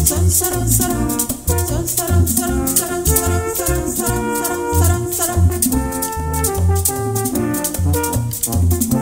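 Dominican merengue played by four French horns in harmony over a bass line, with the steady scrape of a güira and tambora drum beats.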